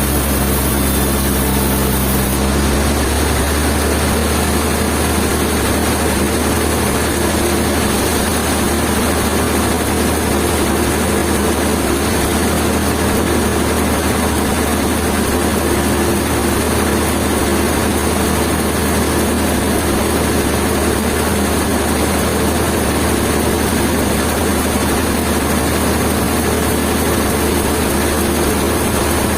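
A heavy engine running steadily at a constant speed, with a shift in its tone about two and a half seconds in.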